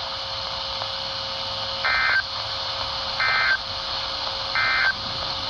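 Three short bursts of EAS digital data, the End of Message code that closes NOAA Weather Radio's Required Weekly Test, played through a RadioShack 12-254 weather radio's speaker. Each burst is a harsh two-tone warble about a third of a second long, a little over a second apart, over a steady reception hiss and a faint hum.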